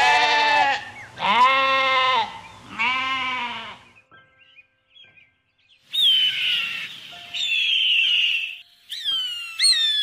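Goats bleating: three long, wavering bleats in the first four seconds. From about six seconds, a bird gives several high cries that slide downward in pitch, coming faster near the end.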